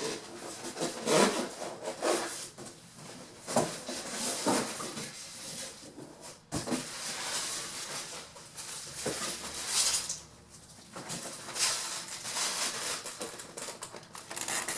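Cardboard box being pulled open and its styrofoam packing handled: irregular rustling, scraping and bumps.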